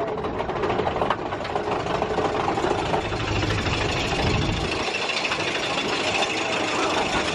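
Big Thunder Mountain Railroad mine-train roller coaster running along its track: a steady rattling rumble from the train. The deep rumble drops away about two-thirds of the way through, leaving a higher rattling hiss.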